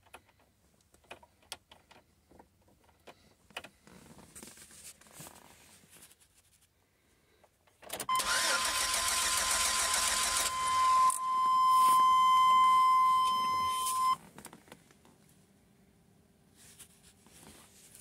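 1997 GMC Safari's 4.3-litre V6 cranking on the starter for about six seconds without catching, with a steady high whine throughout, then cut off. It is a crank-no-start with full fuel pressure, which the owner takes for a no-spark condition.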